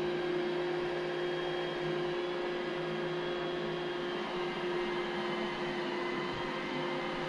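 iRobot Roomba j7 robot vacuum running, a steady motor hum with a fainter high whine.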